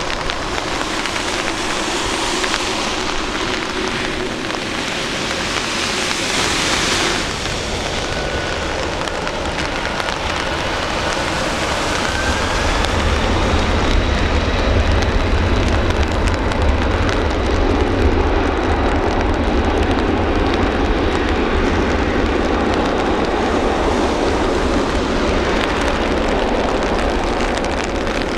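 Boeing 747 freighter's jet engines spooling up to takeoff thrust on a wet runway, the noise growing louder and deeper about halfway through as the aircraft accelerates, with a faint engine whine, over steady rain hiss.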